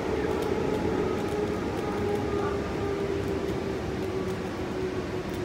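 Electric suburban train heard from inside the carriage: a rumble of wheels on track with a steady motor whine that sinks slightly in pitch as the train slows into a station.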